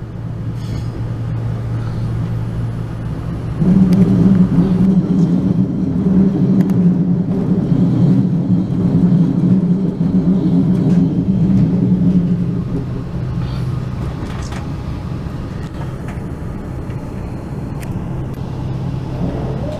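Passenger train running, heard from inside the carriage: a steady low hum and drone. The hum grows louder about four seconds in and eases back after about twelve seconds, with occasional sharp clicks.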